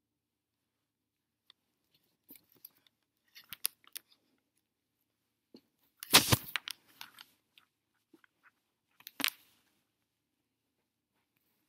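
Handling noise close to the microphone: scattered rustles and clicks of a paper flyer and the recording device being moved, with a loud bump about six seconds in and a sharper knock about nine seconds in.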